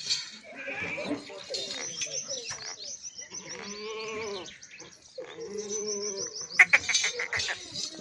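Makhi Cheeni goats bleating: two long, wavering bleats near the middle, one after the other.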